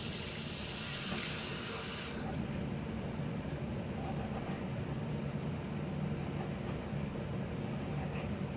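Water running from a tap, shut off about two seconds in, over a steady low hum that continues throughout.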